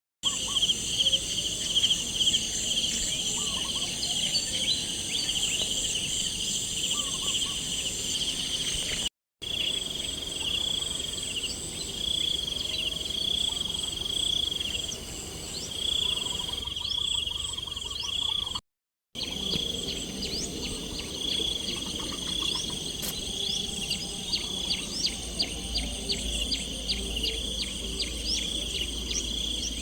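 Chorus of insects trilling steadily at a high pitch, with scattered short chirps of birds. The sound drops out completely for a moment twice, about a third and two thirds of the way in.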